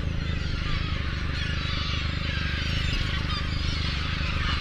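A flock of gulls calling, many overlapping cries at once, over the steady low hum of a fishing boat's engine running.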